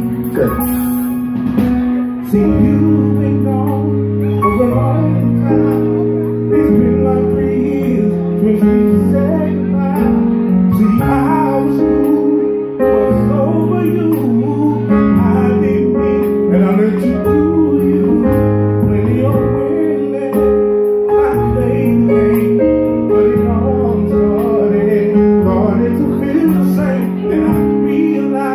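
Live band music with sustained keyboard chords over a moving bass line, held notes changing every couple of seconds.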